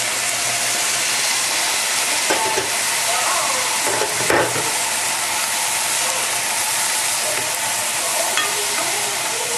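Shrimp stock sizzling and hissing as it is poured into a hot pot of egg noodles, rice vermicelli, shrimp and egg, a steady sizzle throughout. Later a spatula stirs through the noodles with a few short scrapes.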